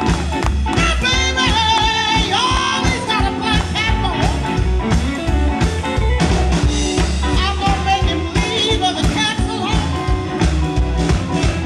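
Live blues band playing: electric guitar and electric bass over a steady beat, with a woman's singing voice.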